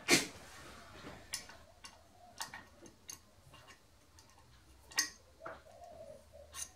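Irregular sharp metallic clicks and taps of hex keys against the steel slotting head as its screws are adjusted, about half a dozen over the stretch, the loudest right at the start.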